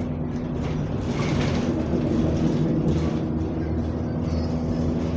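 Bus engine running steadily under way, heard from inside the passenger saloon, with a constant low drone and road noise. There is a brief hiss about a second in.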